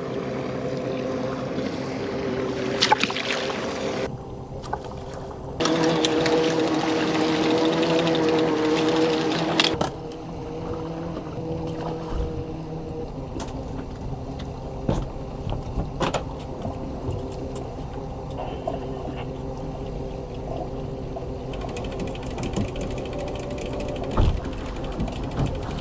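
A boat motor's steady hum, louder between about six and ten seconds in, with scattered mechanical clicks of fishing gear being worked and some water sound.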